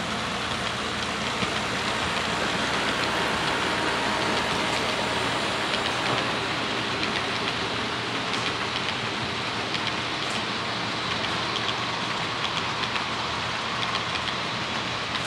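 HO-scale model freight train rolling past: a steady rushing of small metal wheels on the rails, with light clicking as the cars pass over the track. It is a little louder as the locomotives go by at the start.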